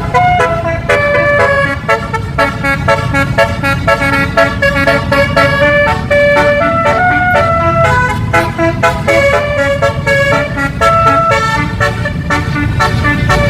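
Basuri 12-note multi-trumpet bus horn ('telolet') playing a quick melody of short notes that change pitch every fraction of a second. A constant low rumble from the bus's engine runs underneath.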